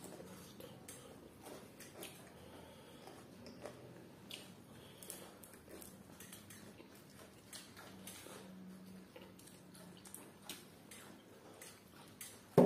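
Close-up mukbang eating sounds: chewing and small mouth clicks while grilled fish and rice are eaten by hand, over a faint steady hum. One loud knock right at the end, as a glass bowl is set down on the table.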